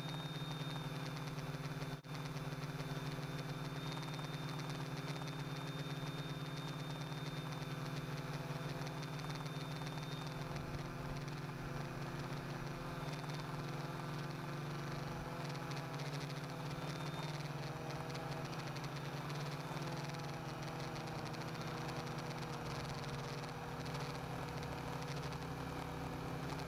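Quadcopter's electric motors and propellers buzzing steadily in flight, heard close up from a camera mounted on the frame. The pitch wavers slightly as the motor speeds shift. A thin high whine stops about ten seconds in, and the sound drops out for an instant about two seconds in.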